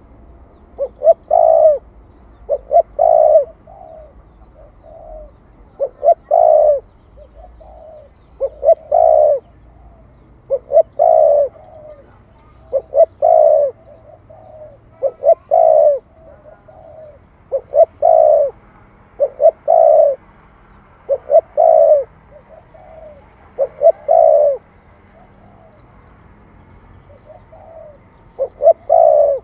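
Spotted dove cooing in the 'thổ thúc gù' voice, the call type bird-keepers use to provoke wild doves and train decoys: a short stuttering phrase ending in a longer coo, repeated about every two seconds, with a pause of a few seconds near the end.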